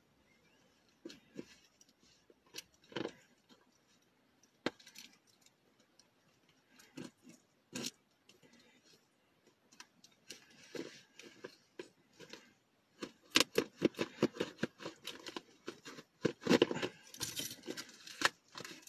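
Hands pulling and tearing at a tightly wrapped package: scattered clicks and scrapes at first, then a busy run of rustling and tearing from about two-thirds of the way through.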